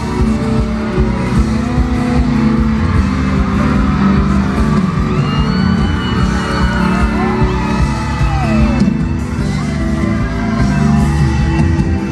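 Live band music played loud in a large concert hall, heard from within the audience, with whoops and cheers from the crowd.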